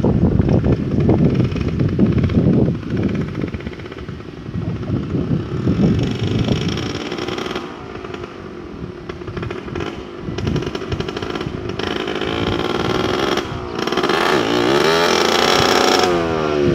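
Two-stroke Suzuki X4 motorcycle engine approaching and growing louder, its pitch rising and then falling in the last few seconds. A loud, uneven rumble dominates the first several seconds.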